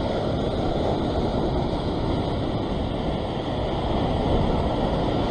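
Surf breaking and washing over rock ledges: a steady, even rush of noise with no separate crashes standing out.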